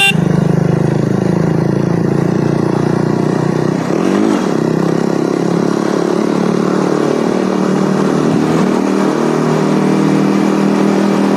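KTM motorcycle engine running steadily under way. About four seconds in, the engine note dips briefly, then holds steady again.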